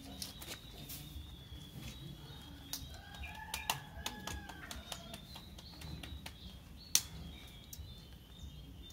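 Light rustling and scattered clicks of a disposable diaper being handled and fastened on a baby monkey, with one sharp click about seven seconds in. A drawn-out call sounds faintly in the background around three to five seconds in.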